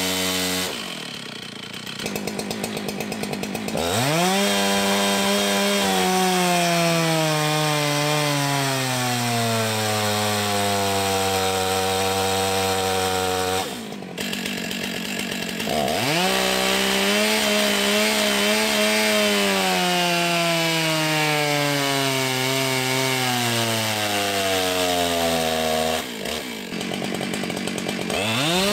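Large 90cc two-stroke chainsaws, the first a Stihl MS 660, on a dynamometer pull. Each saw idles, snaps to full throttle, then slowly drops in pitch over about ten seconds as the dyno loads it down through its rpm range. A second run follows the same pattern after a sudden cut about halfway through, and the next saw revs up just at the end.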